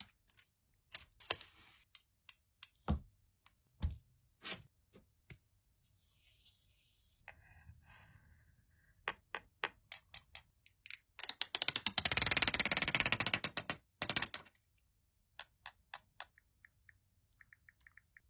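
Packaging and handling noises from unboxing a smartphone: scattered sharp clicks and taps, a short soft rustle about six seconds in, and a dense rapid rattle of clicks lasting about three seconds past the middle, then a few lighter clicks.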